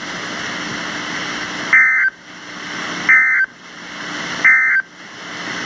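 NOAA Weather Radio SAME end-of-message tones: three short two-tone digital data bursts, about 1.35 s apart, signalling the end of the alert broadcast. Between the bursts, radio static hiss fades after each burst and then builds up again.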